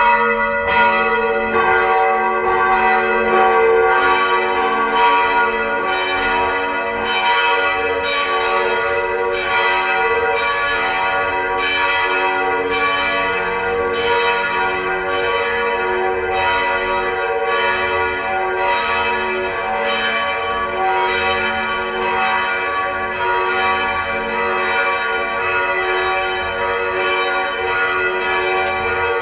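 Several FelsenKirche church bells pealing together in a continuous run of strikes. The strikes come about one or two a second, and each bell's tone rings on and overlaps the next.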